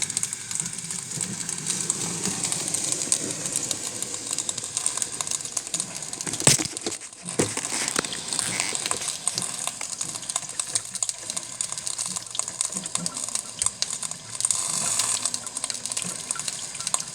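Cuisinart drip coffee maker brewing, its water boiling and sputtering in the heater as the reservoir drains. A single sharp knock about six and a half seconds in.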